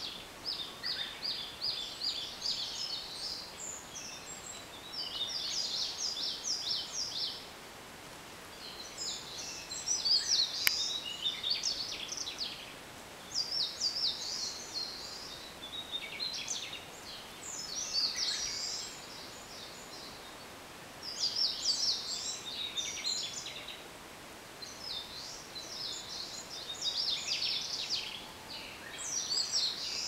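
Wild songbirds singing in repeated phrases of quick, high notes, each phrase a couple of seconds long with short pauses between, over a steady low background hiss.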